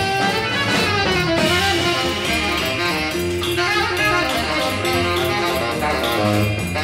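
A live jazz group plays: electric guitar lines over double bass and drum kit.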